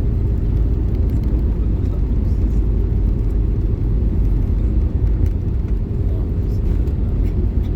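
Steady low rumble inside the cabin of an Airbus A320 on the ground just after landing.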